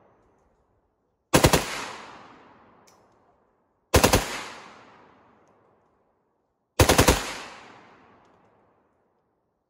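AK-74 rifle in 5.45x39mm fired on full auto in three short bursts of about four rounds each, roughly three seconds apart. Each burst is followed by a long echo that fades over about two seconds.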